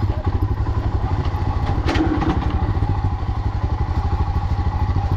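Royal Enfield Himalayan's single-cylinder engine running steadily at low revs, its firing pulses thumping evenly. A single sharp knock sounds about two seconds in.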